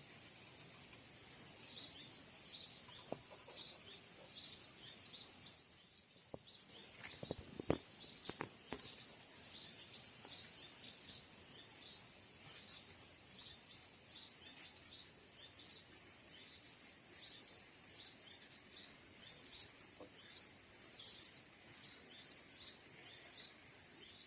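Recorded bird call played from an MP3 player as a lure: a rapid, unbroken series of high, short, falling chirps, about three a second, starting suddenly about a second in.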